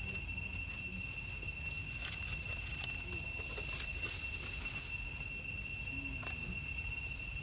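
Steady high-pitched insect drone with an even low rumble beneath it, and a few faint ticks.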